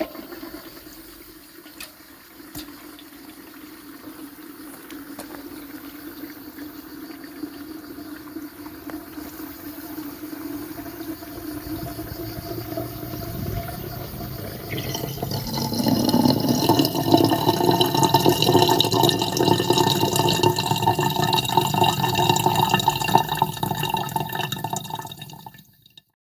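Water running from a gravity-fed faucet into an outdoor sink. It grows gradually louder, then becomes a fuller, louder splashing about fifteen seconds in.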